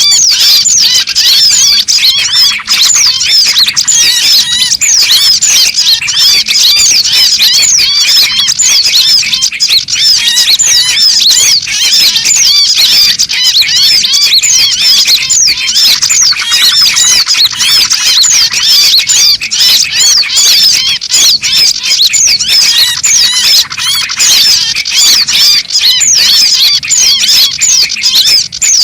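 Bird-lure recording of a dense chorus of small songbirds: many short, fast, high chirps and squeaky scolding calls overlap without a break. It is a pikat call mix meant to draw small birds in to perch.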